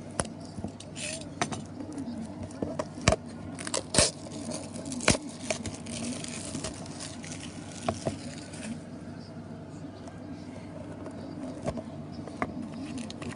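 Trading-card packs being handled and opened by hand: crinkling, rustling wrapper with scattered sharp clicks and taps, busiest in the middle, over a faint steady background hum.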